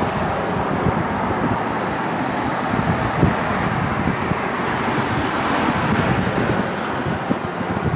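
Road traffic passing close by: steady tyre and engine noise of cars and a pickup truck going past, swelling a little as a vehicle nears a few seconds in.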